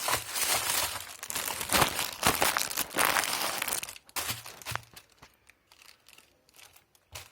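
Crinkling and rustling of the knee bandage's packaging as it is handled and opened. The crinkling is dense for about four seconds, then gives way to a few lighter rustles and a short sharp click near the end.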